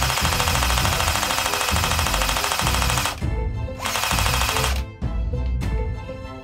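Toy M249 light machine gun firing with a fast machine-gun rattle in two bursts, one of about three seconds and a shorter one of about a second, stopping about five seconds in. Background music with a steady beat runs underneath.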